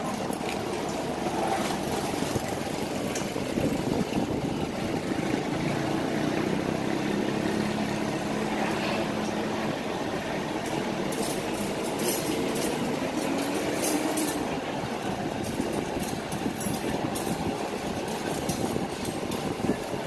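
Steady low rumble of vehicle traffic over a background hiss, with a few light clicks about halfway through.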